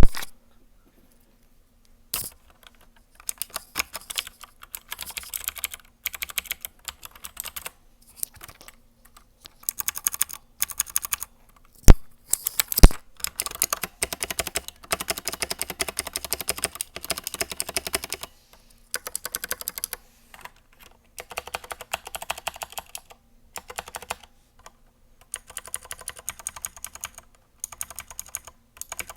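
Typing on a Royal Kludge RK71 mechanical keyboard with clicky blue switches: rapid runs of sharp clicks in bursts with short pauses between them. Two louder single strikes come about halfway through.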